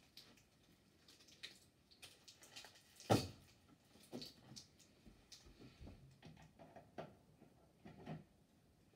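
Scattered rustles and small clicks of an artificial Christmas tree and a string of Christmas lights being handled, with one sharp knock about three seconds in.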